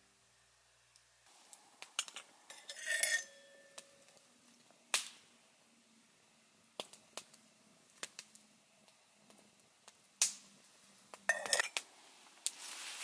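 Small campfire crackling with scattered sharp pops, and a couple of metallic clinks from a stainless steel cooking pot and its handle being handled over the fire. A hiss rises near the end.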